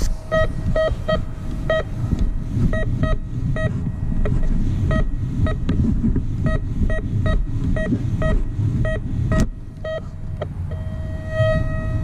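Metal detector beeping: short chirps at one pitch, unevenly spaced a few to the second, then a steady held tone near the end. A loud low noise runs underneath.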